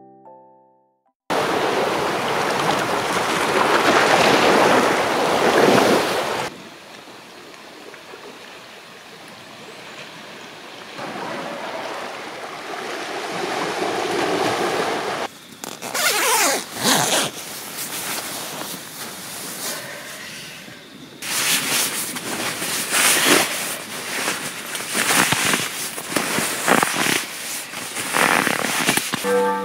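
Waves washing on a rocky shore, swelling and easing. From about two-thirds of the way in, the crackly rustle of a nylon sleeping bag being handled and stuffed, with a chime melody just starting at the very end.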